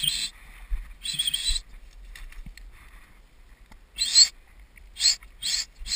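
Dry grass and brush swishing against legs and camera as someone walks through tall dry cover: a series of short, irregular rustling bursts, several close together near the end.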